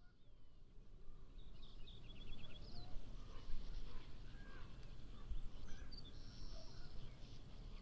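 Wild birds chirping and calling, with short whistled notes and a quick run of five repeated notes about two seconds in, over a steady low outdoor rumble. The sound fades in at the start.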